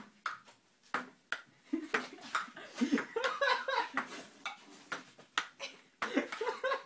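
Ping pong ball clicking as it bounces on the table and is batted back and forth, a quick, irregular run of sharp taps about two a second. A person's voice comes in briefly in the middle.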